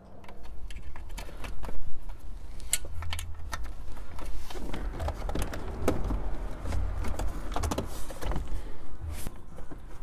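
Hands working car dash wiring and plastic trim: repeated sharp clicks, taps and rattles of connectors and plastic parts over a low rumble, as the aftermarket radio's wiring is connected and the radio is pushed back into the dash.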